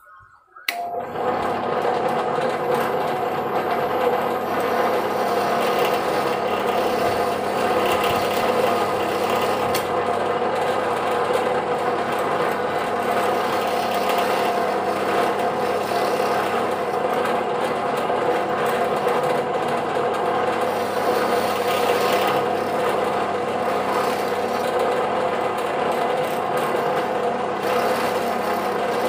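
Benchtop drill press starting suddenly and running steadily, its bit boring into a small block of red angsana (sono kembang) wood with a steady motor tone under the rasp of cutting.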